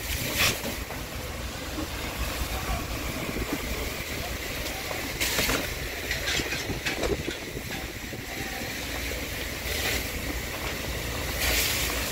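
Burning timber crackling and popping, with a few sharper, louder bursts of crackle, over a steady low rumble.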